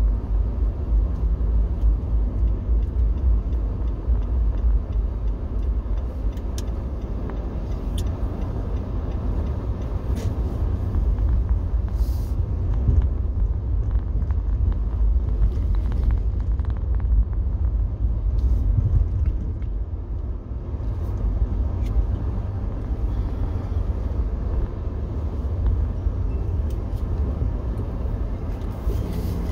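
Car's engine and road rumble heard from inside the cabin while driving, a steady low drone with a few faint clicks.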